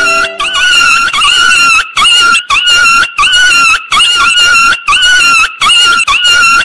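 A loud animal cry repeated at an even pace, about once a second. Each call is held at a steady pitch for most of a second, with a slight dip at its start.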